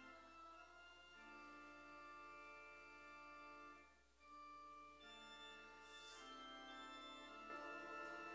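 Church organ playing slow, sustained chords softly, with a brief break about four seconds in before the chords resume.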